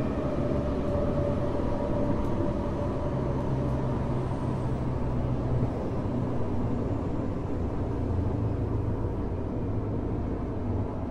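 Running noise inside a Tokyo Metro 05 series aluminium-bodied train car, heard at the car end: a steady rumble of wheels on rail with a few faint steady hums above it, easing off slightly near the end.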